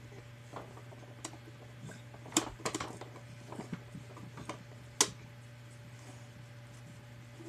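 Irregular plastic clicks and taps from a baby's hands working the buttons and lever on a plastic ride-on toy, about a dozen spread unevenly, with a quick run of them a little after two seconds in and the sharpest click about five seconds in. A faint steady low hum lies underneath.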